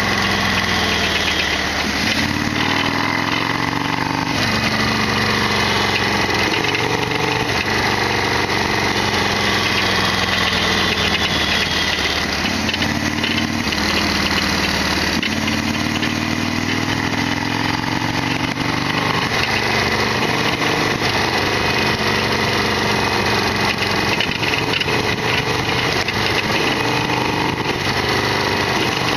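Harley-Davidson Sportster XL1200R's V-twin engine running as the motorcycle is ridden, the revs climbing and dropping back several times as it pulls through the gears.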